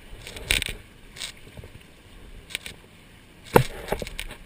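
Water slapping and splashing against the hulls of a Hobie 18 catamaran under sail: a low steady wash broken by several sharp slaps, the loudest about three and a half seconds in.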